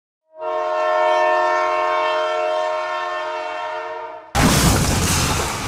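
A train horn holds one steady chord of several notes for about four seconds. It cuts off suddenly into a loud crash as the toy locomotive hits the tractor, and the crash fades away near the end.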